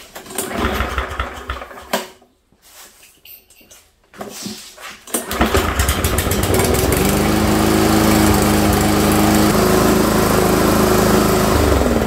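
Walk-behind push mower's small engine being recoil-started: a first pull that doesn't catch, a second pull about four seconds in that fires it, and then it runs steadily. Near the end it is switched off and starts to wind down with no clunk, now that a new blade adapter with an intact key is fitted.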